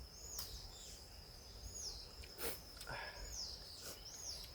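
Forest birds calling over and over, each call a short note that drops in pitch, about one a second, over a steady high insect whine. A few faint clicks.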